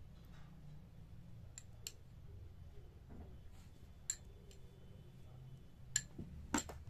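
A metal spoon clinking lightly against dishes a few times while green chutney is spooned out, the strongest clinks near the end, over a faint low hum.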